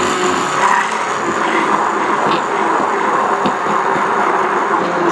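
Handheld stick blender running steadily at full speed, its motor whining as it whips eggs, egg whites and cream in a glass measuring cup.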